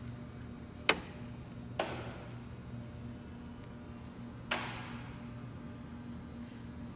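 Metal gearbox parts clinking and knocking against each other three times, the last knock ringing briefly, over a steady electrical hum.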